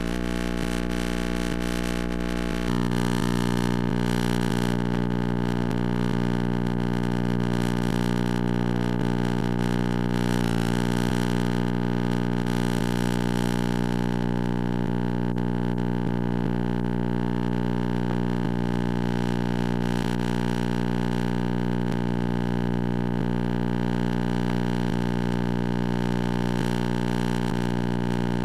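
Steady electrical hum with many overtones, the audio of a blank stretch of videotape after the recording ends. Its tone shifts slightly about three seconds in, with a brief glitch about ten seconds in.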